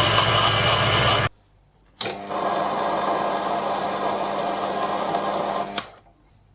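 Proxxon PD 250/E mini lathe running steadily. It stops suddenly about a second in, and after a short silence starts again with a click and runs on with a steady hum until another click near the end.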